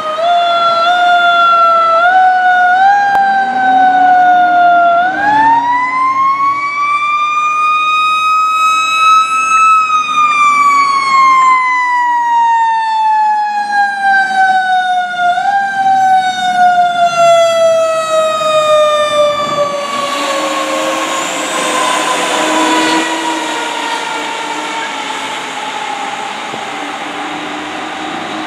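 Federal Q mechanical siren on a fire engine, first blipped in short upward steps, then wound up to a high wail that peaks about ten seconds in. It then coasts slowly down in pitch as the truck drives away, with a brief bump back up about halfway through. A rushing road noise joins in about twenty seconds in.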